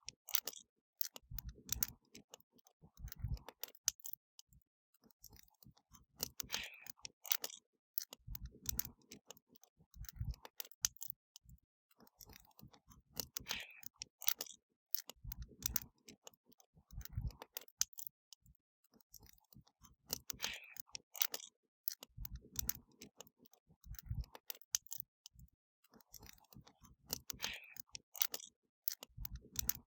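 Wood fire crackling, with scattered sharp pops and soft low thuds that come in pairs. The same pattern of crackles and thuds repeats about every seven seconds.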